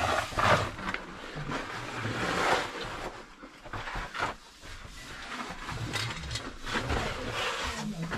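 Irregular scraping and rustling of a caver's gear and clothing against the rock as he lowers himself on a rope down a narrow mine shaft.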